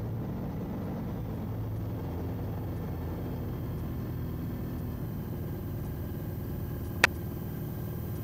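ALTO NG light aircraft's engine running steadily at low power, heard from the cockpit as an even low hum. A single sharp click sounds about seven seconds in.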